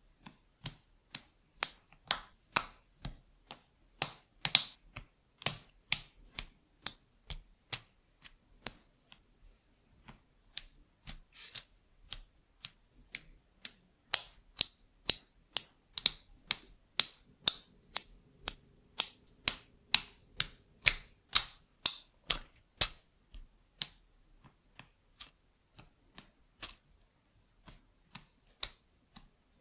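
LEGO Technic plastic pieces clicking as they are snapped together by hand, with pins pressed into beams and a panel. It is an irregular run of sharp clicks, several a second, that thins out over the last few seconds.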